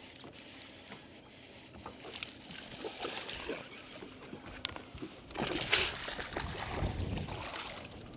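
Water splashing as a hooked bass thrashes at the surface beside the boat and is scooped into a landing net, the loudest splash a little past halfway through.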